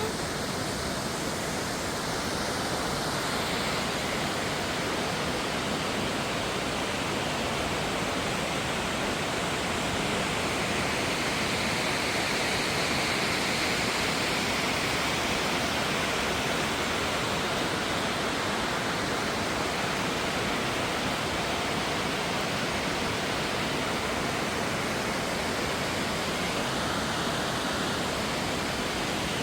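Waterfall crashing steadily: a constant, even rush of falling water.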